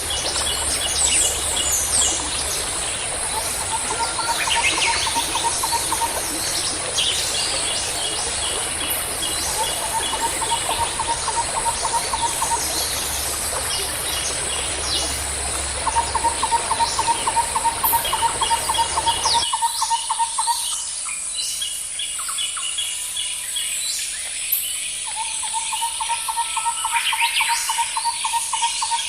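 Several birds calling and singing together: trains of quick repeated notes, strings of chirps and short sweeping calls, over a steady high-pitched drone. A low background rumble drops out abruptly about two-thirds of the way through.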